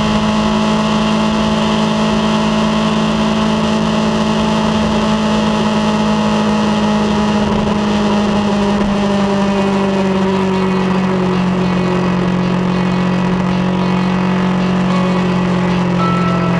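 Kawasaki Versys 650's parallel-twin engine cruising at steady revs on the highway, heard from a camera mounted on the bike, with a steady rush of wind and road noise. The engine note holds even and eases slightly lower in the second half.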